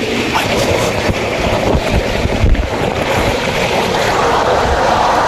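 Water rushing and a rumbling rush of noise as a rider slides down an enclosed water slide tube, with a few low bumps, growing a little louder in the second half.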